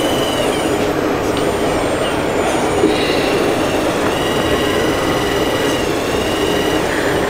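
Motors of a 1/14-scale Liebherr 946 RC excavator whining in stretches of a second or two, starting and stopping as the boom and upper body are moved, over steady background noise.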